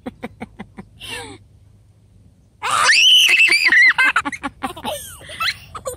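A child's loud, high-pitched squeal lasting about a second and a half, starting a little over two and a half seconds in. Shorter quick vocal sounds come before and after it.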